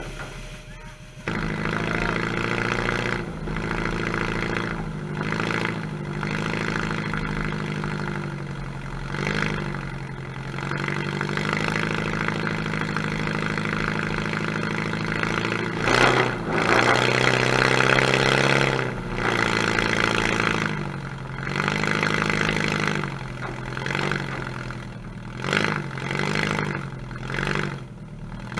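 Demolition derby car's engine starting about a second in, then running with its exhaust pipe stuck straight up through the hood, revving up and dropping back again and again.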